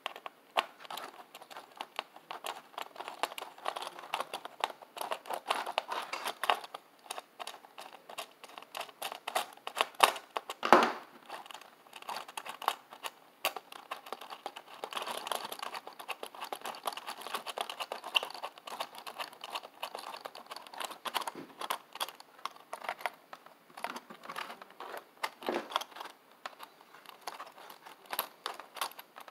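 Small hand-assembly noises: a screwdriver and screws clicking and scraping against circuit boards and a thin perforated metal bracket as the boards are fastened on, an irregular patter of small clicks with one louder knock about eleven seconds in.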